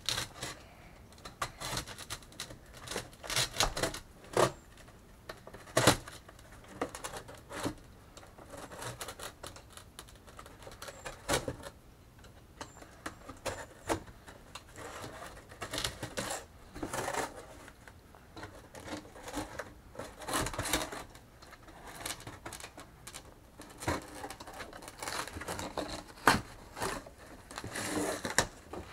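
Utility knife slicing through corrugated cardboard: a run of uneven, scratchy cutting strokes and clicks with short pauses between, some strokes louder than others.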